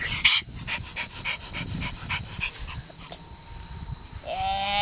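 A dog panting in quick, even breaths, then a short high whine near the end. A sharp knock comes just after the start, and a steady high insect trill runs underneath.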